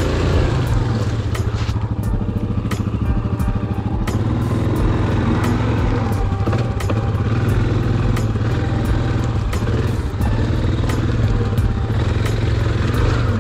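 ATV engine running steadily at low revs in deep mud, with many sharp clicks and knocks through it.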